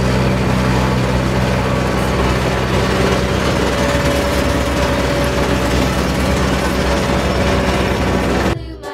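A motor vehicle's engine running steadily at a constant speed, with a low hum under a loud rushing noise. It cuts off abruptly near the end.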